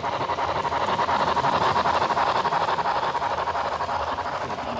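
HO scale model steam locomotive and freight cars running past on the layout's track. The wheels and motor make a steady, rapid clattering rumble, loudest a second or two in as the train passes close.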